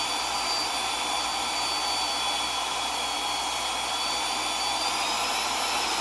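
Electric drill running at steady speed, a continuous high motor whine, drilling holes in the pocket quad's brittle plastic bodywork for zip ties.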